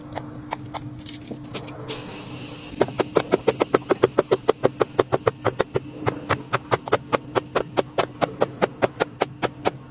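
Silicone bubbles of a large rainbow pop-it fidget being popped by hand in a quick, even run of pops, about five a second, starting about three seconds in. Before that, a few scattered clicks from a small push-button fidget.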